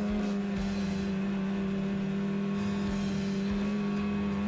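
Polaris snowmobile engine running at a steady pitch under constant throttle along a groomed trail, with a few short thumps from the sled over the snow.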